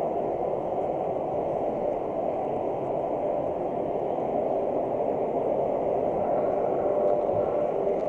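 Steady running noise of a model train heard from a camera riding on it: wheels rolling along the rails with motor and gear drone, an even rushing rumble.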